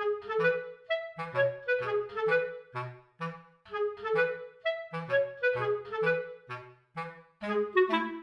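Background music: a bouncy tune of short, separate notes with a reedy woodwind lead over a bass line.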